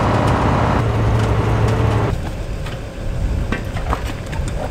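Semi truck engine running steadily, heard from inside the cab while driving. About two seconds in it cuts to quieter outdoor sound with a few light knocks and clicks.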